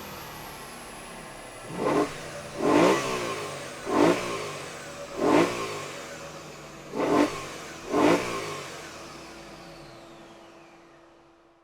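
BMW E92 M3's 4.0-litre V8 blipped six times in quick succession, each rev rising sharply and falling back toward idle. The sound then fades out.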